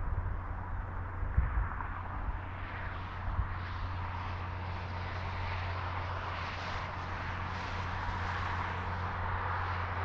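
Interstate highway traffic: a steady rush of tyre and engine noise that swells a few seconds in as vehicles come closer, over a low hum, with a few low thumps in the first seconds.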